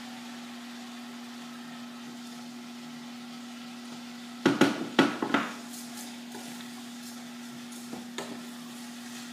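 Cookware and utensils clattering in a short run of sharp knocks about halfway through, with a couple of light clicks near the end as a pot is stirred with a wooden spoon. A steady low hum runs underneath throughout.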